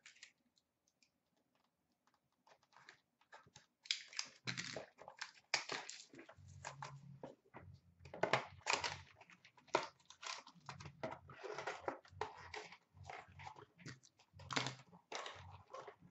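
Crinkling and tearing of a hockey card box's plastic wrap and packaging, with cards and cardboard being handled: irregular crackles and rustles with some soft thuds, starting about four seconds in after a few seconds of near silence.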